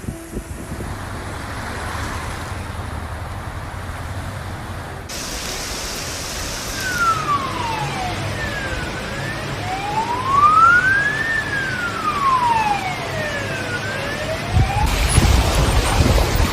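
Emergency vehicle siren wailing, its pitch sweeping slowly down and up again twice, starting about seven seconds in, over a low steady rumble of traffic.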